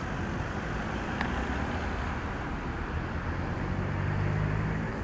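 Street traffic: engines and tyre noise of passing vehicles. A low engine hum builds in the second half as a vehicle passes close, loudest just before the end.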